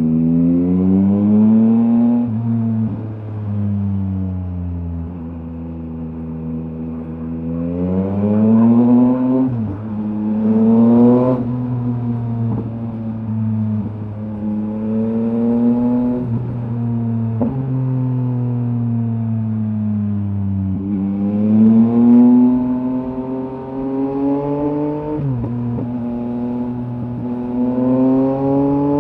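2023 Yamaha MT-09's 890 cc inline three-cylinder engine running through a LeoVince LV Race exhaust, accelerating and easing off several times. The pitch climbs, drops sharply at each upshift, then falls away as the throttle closes.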